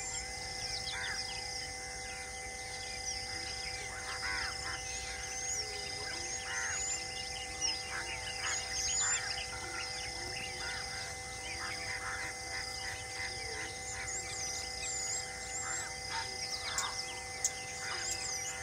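Many birds chirping and calling with short whistled notes, over a steady insect drone that pulses about once a second.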